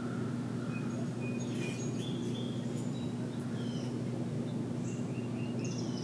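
Small songbirds giving short, scattered chirps and brief high whistles over a steady low hum.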